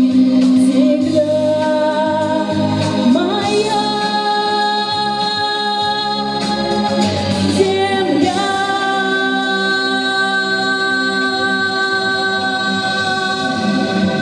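Music: a woman singing over instrumental accompaniment, holding long notes joined by slides in pitch, with one long held note from about eight seconds in.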